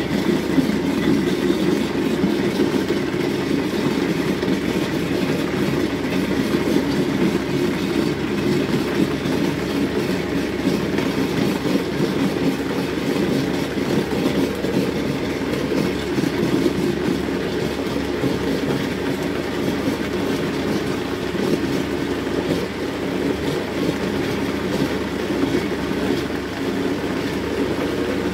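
Vitamix blender motor running steadily, blending soaked sea moss and water into a thick gel.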